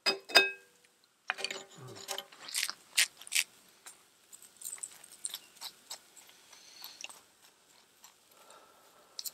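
A cooking utensil knocking and scraping in a camp frying pan as eggs, bacon and cheese are stirred together, the pan ringing briefly at the first strikes. After a few seconds the stirring gives way to fainter scattered ticks and crackles.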